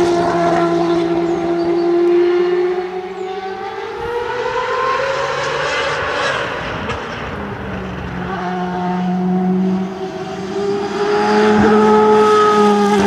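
Dallara GP2/05 race car's 4.0-litre Mecachrome V8 running hard at speed. Its pitch drops and the sound eases about three seconds in as the driver lifts, then climbs again through the revs. It dips briefly near ten seconds and rises back to full power near the end.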